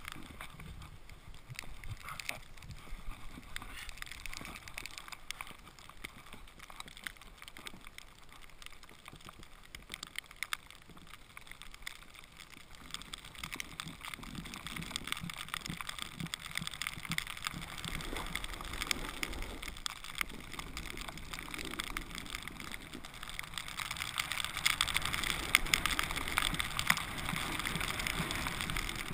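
Snowboard sliding and scraping over snow, a crackly hiss that is quieter at first and grows louder from about halfway as the board picks up speed, loudest near the end.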